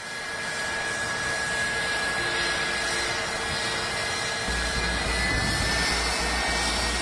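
Sukhoi Su-57 fighter taxiing, its twin AL-41F1 jet engines giving a steady rush with a thin high whine on top. The sound swells over the first second, and about five seconds in the whine rises slightly in pitch as a low rumble comes in.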